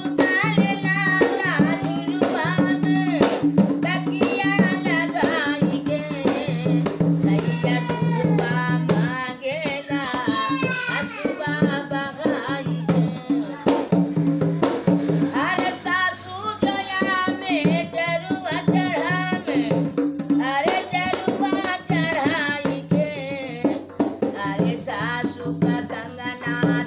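An elderly woman singing while playing a dholak with her hands. The drum strokes keep a steady beat under her voice.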